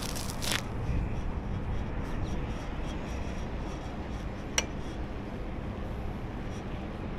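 Steady low rumble of wind and road noise on a moving bike ride, with a short hiss at the start and a single sharp click about four and a half seconds in.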